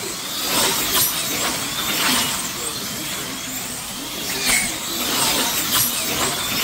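Slot cars racing on a large banked track: high-pitched electric motor whine swelling and fading as the cars sweep past, several passes over a few seconds.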